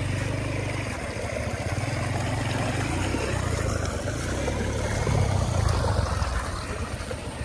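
A motorcycle engine running steadily at low speed, with wind rushing over the microphone.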